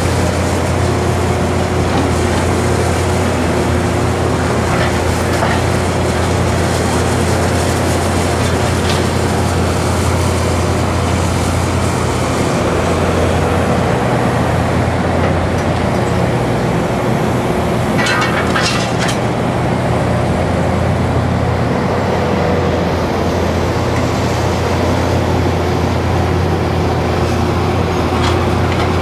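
An excavator's diesel engine running steadily at a constant speed, with a brief run of sharp metallic clicks about two-thirds of the way through.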